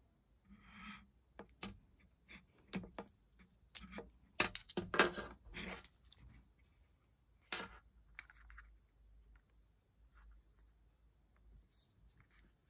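Handling noise from a Yealink UH36 wired headset being turned over in the hands: quick plastic clicks and rustles of its coiled cable and earcups, busiest in the middle and thinning out to a few faint ones near the end.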